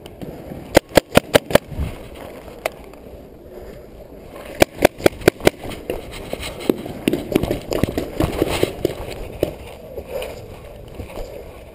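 Paintball marker firing two rapid strings of about six shots each, about a second in and again near the middle, followed by scattered single pops and gear rustling.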